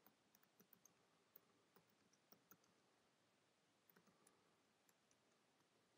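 Near silence with faint computer keyboard typing: a quick run of key clicks in the first two and a half seconds, then a few more about four seconds in.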